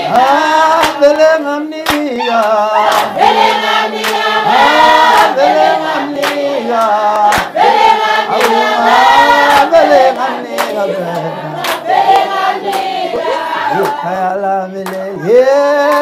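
A crowd of voices singing a song together as a chorus, with handclaps keeping the beat.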